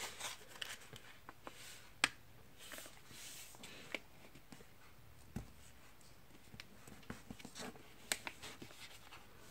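A sheet of printer paper being folded and pressed flat by hand on a table: faint rustling with a few short, sharp clicks, the loudest about two seconds in.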